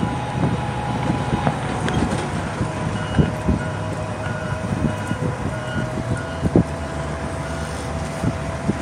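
Car driving slowly, heard from inside the cabin: a steady engine and road rumble with a thin whine that drops in pitch twice about two seconds in, then holds. A few knocks and bumps come through, the loudest two about three and six and a half seconds in.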